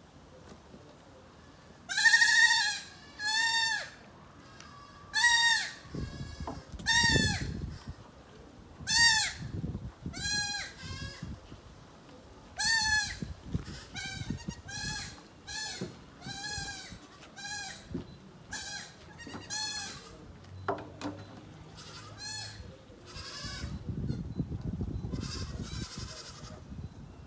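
Goats bleating over and over: short wavering calls, roughly one a second, some loud and some fainter, from several animals at once.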